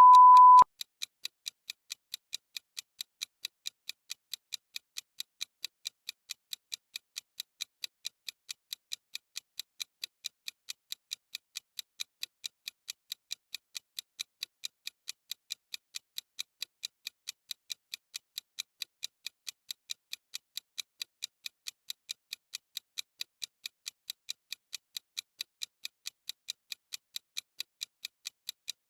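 A short beep at the very start, then the timer's clock-style ticking sound effect, crisp and evenly spaced, counting off the seconds.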